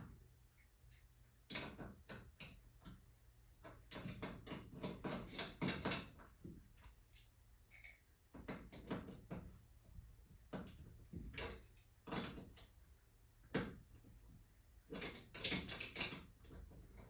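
Irregular metallic clicks and knocks, some in quick clusters, from hand work on garage door torsion spring hardware.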